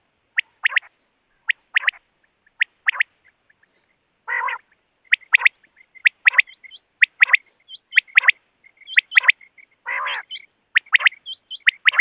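Rain quail calling: sharp notes in pairs and threes, repeated about once a second. Two short buzzy rattles come about four and ten seconds in, and higher chirping notes join from about six seconds in.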